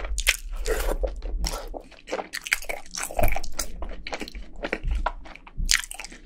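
A person chewing a mouthful of crunchy food, with many sharp, irregular crunches in quick succession.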